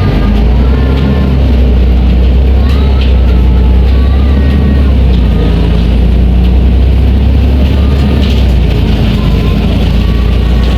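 Volvo B340M bus's six-cylinder diesel engine running steadily with a loud, even low rumble.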